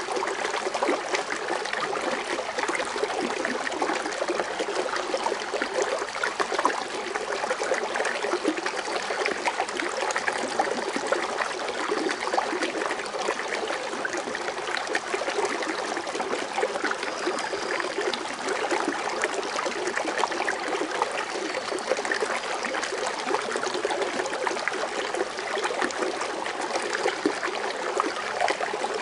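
Foaming water fountain: a steady, unbroken splashing and trickling of water falling back into its basin.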